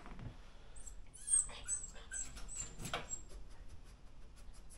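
Border Terrier whining in a crate: a run of short, high-pitched whimpers, the sharpest about three seconds in. It is the whining of a dog that wants to be let out.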